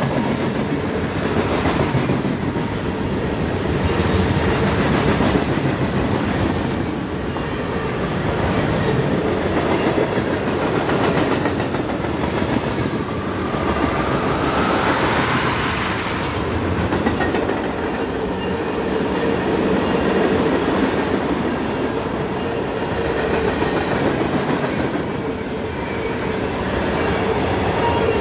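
Freight cars of a long mixed manifest train rolling past at speed: a steady rumble of steel wheels on the rails with clickety-clack over the joints. A faint rising wheel squeal comes about halfway through.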